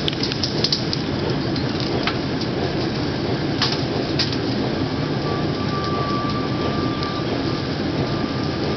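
A Jordan spreader rolling along the track with its wing out, cutting the ditch: a steady rumble of the moving car and the blade scraping through soil and ballast, with scattered clicks and knocks. A faint thin squeal runs for about two seconds midway.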